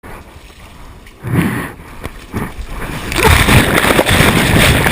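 Churning, splashing water and wind noise rushing over the microphone: a short surge about a second in, then louder and steady from about three seconds on.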